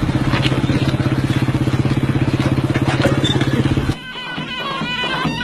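An engine running steadily with a fast, even pulse, breaking off abruptly about four seconds in. Music starts as it stops.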